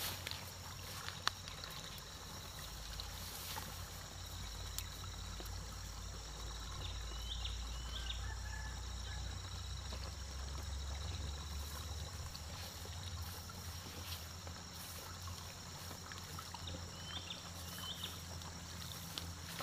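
Ambience at a small grassy stream: faint trickling water over a low rumble, with a steady high-pitched hum. Two pairs of short chirps come about seven and about seventeen seconds in, and there are a few brief clicks and rustles.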